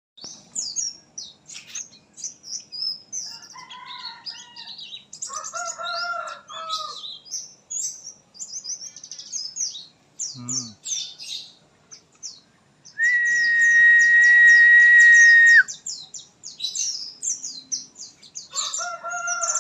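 White-eyes (pleci) twittering with rapid, high chirps throughout, while a rooster crows in the background about a third of the way in and again near the end. Past the middle, a loud steady high-pitched tone with a hiss cuts in for nearly three seconds and stops abruptly.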